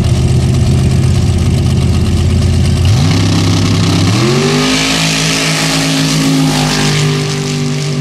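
Formula Offroad drag-racing jeep engines held at revs on the start line, then climbing in pitch in two steps about three and four seconds in as the cars launch and stay on full throttle. A hiss of thrown sand and gravel builds up under the engine note.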